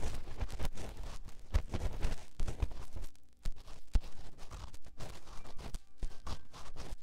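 Close-miked ASMR ear-massage triggers: continuous irregular scratching and rustling on the microphone, broken by soft knocks and low thumps.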